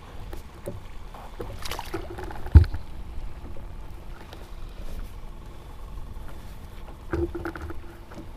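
Knocks and bumps of handling on a plastic sit-on-top fishing kayak. The loudest is a single hollow thump about two and a half seconds in, and there is a short cluster of knocks near the end.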